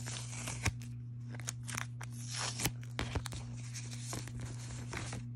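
Washi tape being peeled off a plastic toploader, with rustling of plastic sleeves and many small clicks and taps from handling them. A steady low hum runs underneath.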